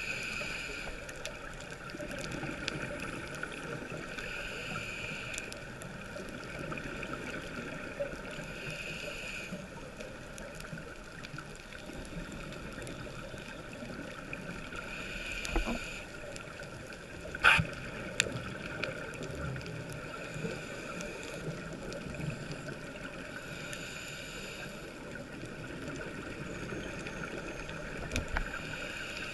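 Underwater ambience of a scuba dive: a steady muffled rush of water, swelling every four to five seconds with a diver's regulator breaths and exhaled bubbles. One sharp click about two-thirds of the way through.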